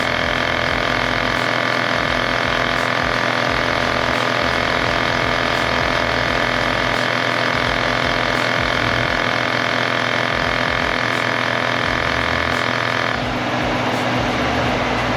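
Portable cordless tyre inflator's small electric piston compressor running steadily under load while pumping up a car tyre. Its tone changes about 13 seconds in.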